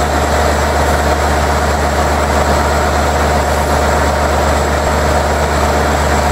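Steady, even drone of an LIRR M7 electric multiple-unit train's running equipment, with a thin high whine held on top.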